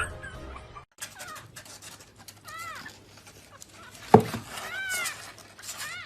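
A cat meowing several short times, each call rising and falling in pitch, with a sharp knock about four seconds in.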